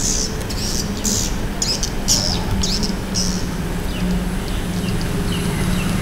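Edible-nest swiftlets calling: a run of short, high, hissy chirps, about two a second, then a few fainter chirps over the last couple of seconds, over a steady low background hum.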